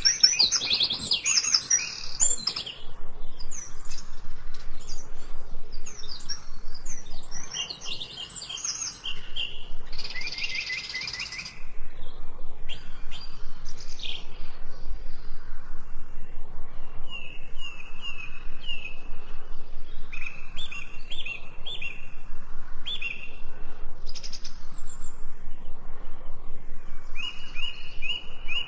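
Songbirds chirping and singing: many short, high calls overlapping, then in the second half a bird repeating the same quick high phrase over and over.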